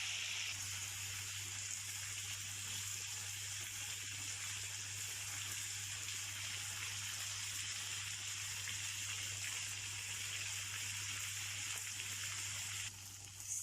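Chicken pieces sizzling steadily as they fry in hot oil in a pan, easing off briefly near the end, over a steady low hum.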